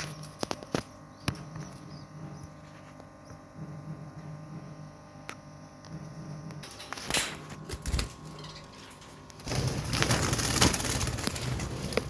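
Budgerigars moving about a breeding cage: scattered small clicks and taps, then a loud rustling flutter of wings during the last couple of seconds.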